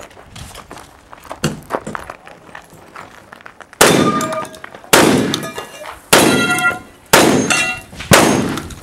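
Five shotgun shots about a second apart, each followed by the ringing clang of a struck steel target. Before the shots, only light clicks and handling noise.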